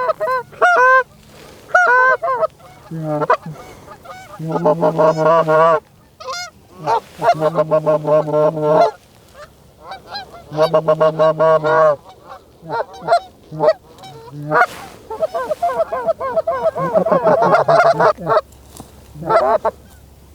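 Canada goose calling: loud honks and clucks in rapid runs, coming in bursts with short gaps between them.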